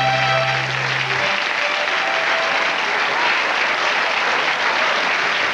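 Studio audience applauding steadily. A held chord of music underneath stops about a second in.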